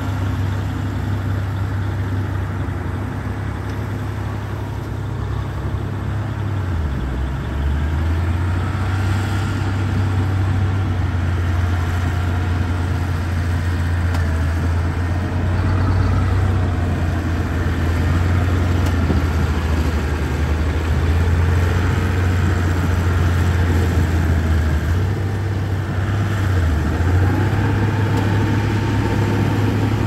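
Small crawler bulldozer's diesel engine running steadily as it pushes wet soil. Its low note drops and grows louder about seven seconds in, then rises again near the end.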